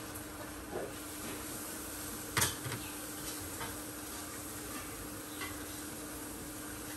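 Food stir-frying in a wok: a steady sizzle over a low hum, with a sharp metallic clank of a utensil against the wok about two and a half seconds in and a few lighter taps.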